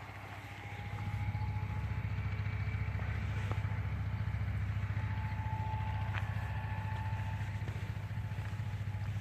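An engine running steadily, a low pulsing hum that gets louder about a second in, with a faint thin whine above it.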